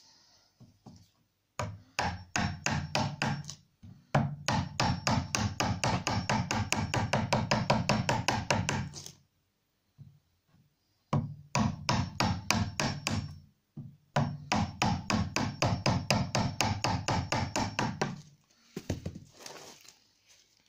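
A wood chisel being driven into a softwood upright with quick light blows, chopping out a small notch. The blows come in four runs of rapid knocks separated by short pauses.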